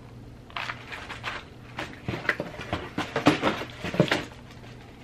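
Plastic nail packaging handled and opened: rustling and crinkling with a quick run of clicks and taps, busiest in the middle of the stretch, under a faint steady low hum.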